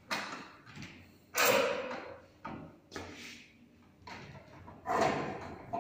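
Several knocks and scraping clatters as sliding-contact tube rheostats are handled on a wooden lab bench, the loudest about a second and a half in and another near the end.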